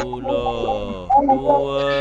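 Children's voices chanting the 10 times table in a sing-song tune, the numbers drawn out on long held notes.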